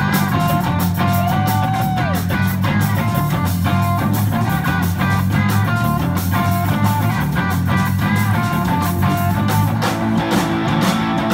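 Rock band playing: a guitar riff with a note bent and let fall about two seconds in, over bass guitar and a drum kit beating steadily.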